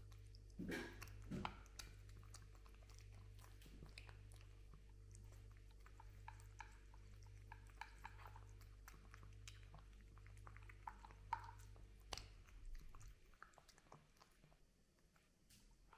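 A cat eating from a plastic bowl: faint, rapid clicks of chewing and crunching that stop about twelve seconds in. A low steady hum runs underneath and cuts off at about the same time.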